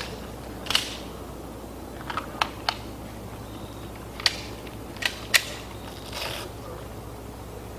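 Handguns being made ready: sharp metallic clicks of magazines seating and pistol slides being racked, in a few scattered clicks and a quick cluster of three, with a brief rustle near the end.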